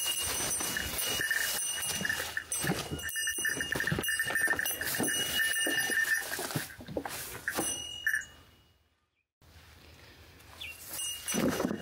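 Crows cawing repeatedly, the calls breaking off briefly about nine seconds in.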